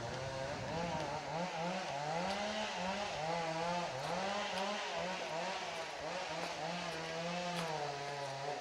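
Chainsaw engine running at high speed, its revs rising and falling over and over, then cutting off abruptly at the end.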